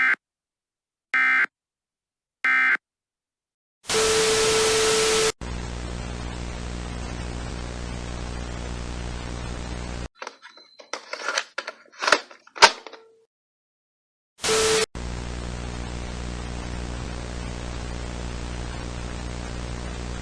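Three short squawking data bursts of an EAS end-of-message code, about a second apart. Then a sudden blast of noise with a steady tone in it, and a steady static hiss over a low hum, broken by crackles and a dropout and by another short noise burst. A simulated broadcast going off the air.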